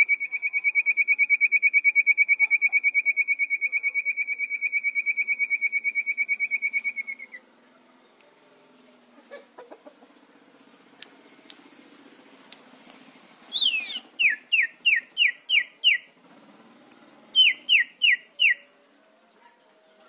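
Caged sirtu songbird singing: a long, rapid trill held at one pitch that stops about seven seconds in. After a quiet stretch, it gives a row of short, falling whistled notes, six in a row and then four more.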